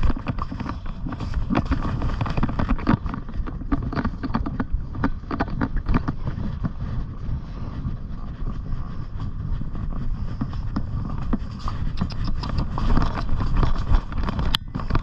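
A horse being ridden, heard through a GoPro carried on the ride: a constant low rumble of movement with many irregular knocks and clatters from hooves and tack.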